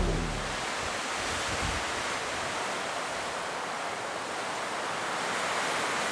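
Sea surf washing steadily, an even rushing that swells slightly near the end.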